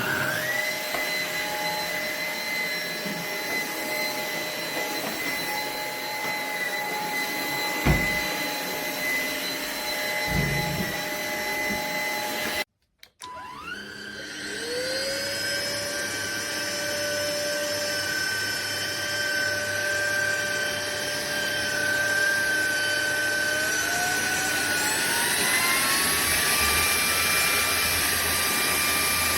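SMOTURE cordless stick vacuum's motor running with a steady high whine. About halfway through the sound cuts out for a moment, then the motor spins up again, and later its pitch rises as it speeds up.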